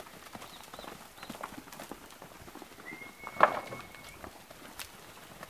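Cattle trotting through a dirt corral, their hooves knocking and scuffing in an uneven patter, with one sharp, much louder knock about halfway through. A long steady whistle sounds for about a second in the middle.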